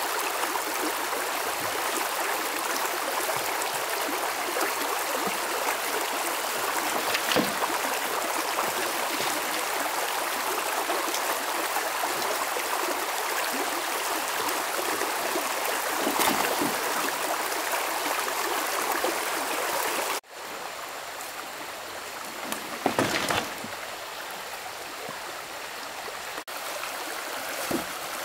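Stream water running steadily, with a few short knocks over it. About two-thirds of the way through, the water sound cuts off abruptly and comes back quieter.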